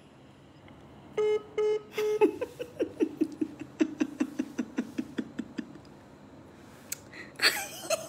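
A woman laughing: three short, high, held notes, then a long run of quick "ha-ha" pulses that slowly drop in pitch and trail off, with one more short burst of laughter near the end.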